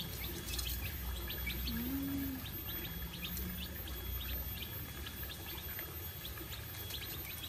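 Three-day-old chicks peeping in short, high, scattered chirps, several each second, as they peck at feed, over a low steady rumble.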